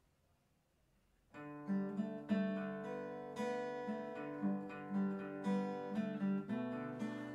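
Acoustic guitar played solo, starting just over a second in: plucked notes with a new one about every half second, ringing over held bass notes.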